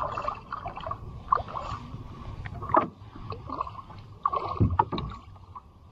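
A hooked bass thrashing and splashing at the water's surface beside a kayak as it is played in. The splashes are irregular, the loudest about three seconds in and again around four and a half seconds in.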